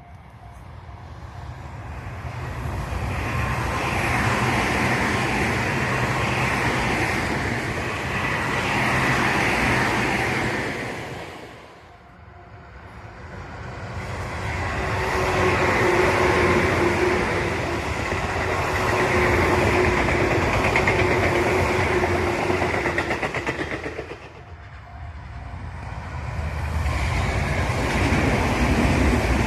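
Tobu Tojo Line trains passing, three times in a row: each builds up to a steady rumble of wheels on rail, then drops away, and the last is still passing at the end. The middle pass carries a steady whining tone over the rumble.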